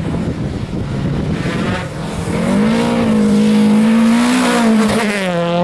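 Volvo rally car at speed on a gravel stage. A rough rush of wind and gravel noise comes first, then about two seconds in the engine comes in loud and close at high, steady revs. Its pitch rises a little, then drops sharply near the end.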